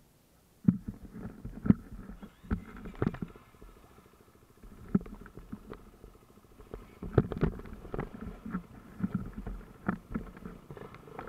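Dirt bike engine idling, with a fine even pulsing that becomes clearer about halfway through. Irregular knocks and bumps close to the microphone sound over it, most in the first three seconds and again toward the end.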